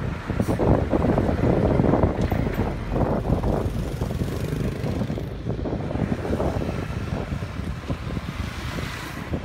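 Wind buffeting the microphone in uneven gusts, a dense low rumble that swells and falls, with road traffic underneath.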